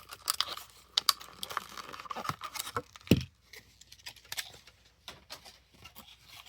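Plastic blister-card packaging of a diecast toy car being handled and opened: irregular crackles and sharp clicks, with one louder thump about three seconds in.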